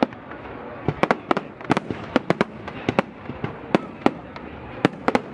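Fireworks display: a rapid, irregular string of sharp bangs from bursting shells, about three or four a second, over a continuous background of lower noise.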